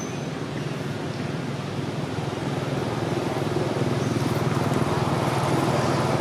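A motor vehicle's engine running steadily, getting gradually louder.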